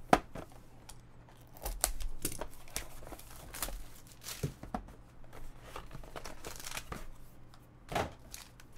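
A sealed cardboard box of 2017 Topps Tier One baseball cards being handled and torn open, then the crinkling of the foil pack wrapper inside, with many short crackles and knocks. A sharp knock right at the start is the loudest moment.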